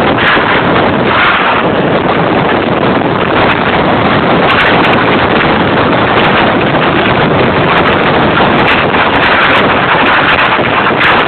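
Strong typhoon wind, loud and steady with swelling gusts, buffeting the microphone.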